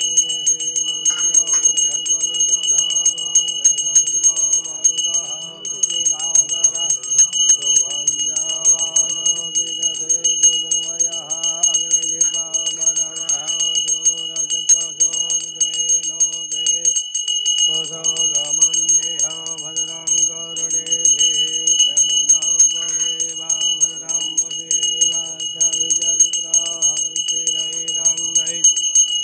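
A small bell rung fast and without pause, its bright ringing steady throughout, with singing underneath.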